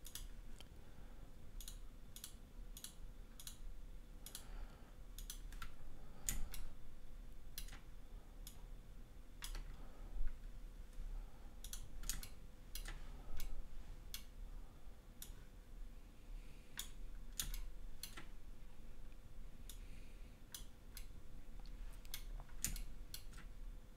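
Computer mouse and keyboard clicking at irregular intervals, sometimes two or three in quick succession, over a faint steady hum.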